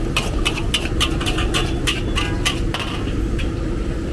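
Metal spatula scraping and clanking against a large steel wok as noodles are stir-fried, several quick strikes a second that thin out near the end. A steady low rumble runs underneath.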